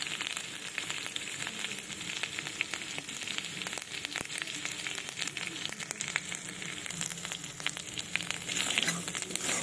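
Spices and ginger paste sizzling in hot oil in a kadai, a steady hiss with many small crackling pops: a tempering of nigella seeds, fennel, chilli and asafoetida being fried.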